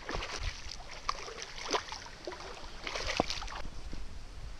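Water splashing and sloshing as a hooked zander is drawn to the bank and lifted out by hand, with irregular short splashes and clicks throughout.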